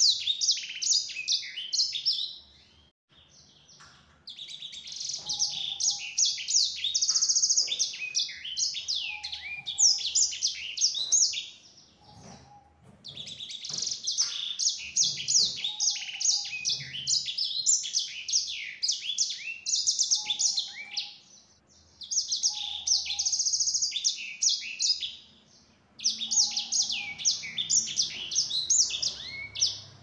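A caged sanger songbird singing long, rapid twittering phrases full of quick trills and chirps, in about five bouts broken by short pauses of a second or two.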